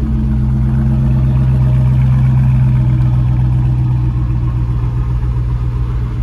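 Car engine idling with a deep, steady tone that swells a little about two seconds in and eases back after about four.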